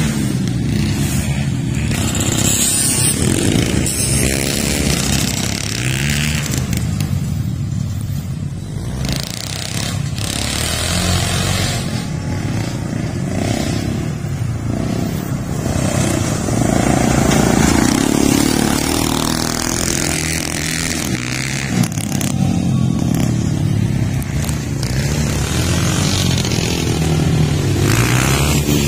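Old pickup truck engine revving hard on a dirt racing circuit, its pitch rising and falling again and again as the truck accelerates and eases off.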